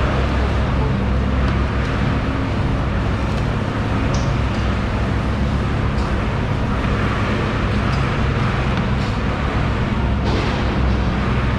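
Steady low engine-like hum under a constant noisy din, with a few faint clicks, and no clear change throughout.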